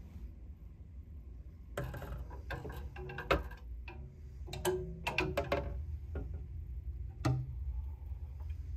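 Wooden clothes hangers knocking together and their metal hooks clicking along a metal closet rail as they are pushed aside: a run of sharp clacks with a short ring, in clusters, with a last single clack near the end.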